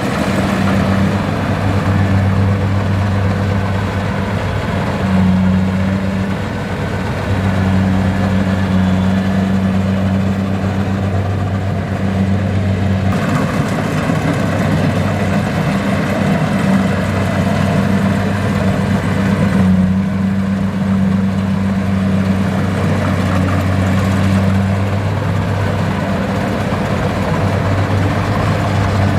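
Kubota combine harvester's diesel engine running steadily with a deep hum, its tone shifting slightly now and then.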